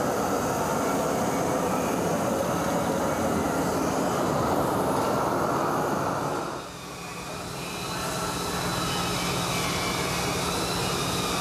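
A propane torch hisses steadily against a bronze sculpture, heating it for the patina, and cuts off about six and a half seconds in. After that a quieter, steady low hum carries on.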